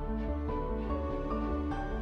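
Background music: a soft new-age style track, with sustained notes changing every half second or so over a steady low bass pulse.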